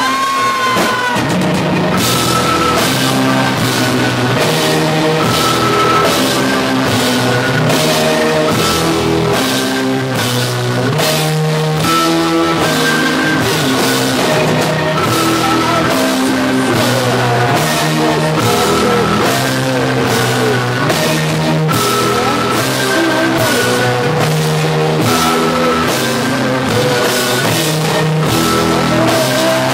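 Live rock band playing electric guitars and a drum kit, loud and steady; the drums come in about two seconds in.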